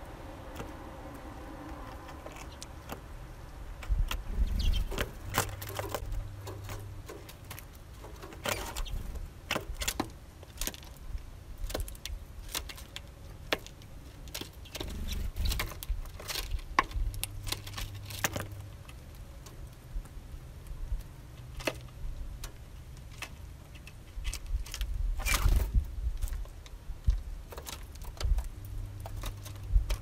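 Eurasian bullfinches pecking and cracking sunflower seeds in a wooden feeder tray: irregular sharp clicks and taps of beaks on husks and wood. A low rumble runs underneath, with a low hum that comes and goes.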